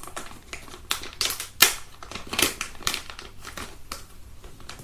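Hands handling a small plastic quick-release camera mount: irregular clicks and crinkling rustles, the loudest about one and a half seconds in, thinning out near the end.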